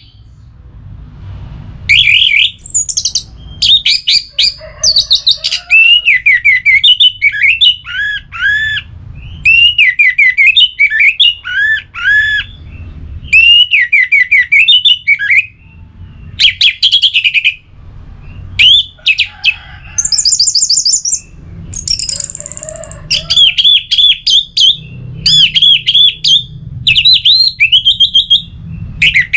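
Orange-headed thrush singing loudly: one to two second phrases of rapid, varied whistled and chattering notes, repeated with short pauses, some phrases rising to thin high notes.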